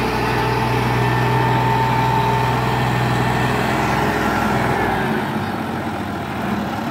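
Ursus 3512 tractor's three-cylinder diesel engine running steadily under load, pulling a trolley full of sand. Its low drone eases and turns rougher about five seconds in.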